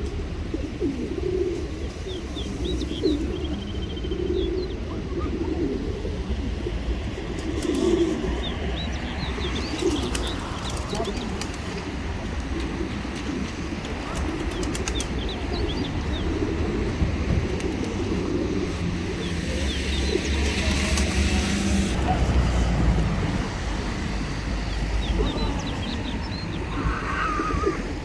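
A flock of pigeons cooing over and over, with bursts of wing flapping now and then and small high bird chirps among them.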